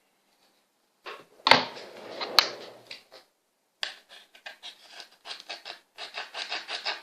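Hands handling objects: two sharp knocks, then a fast, irregular run of small clicks and rubbing sounds.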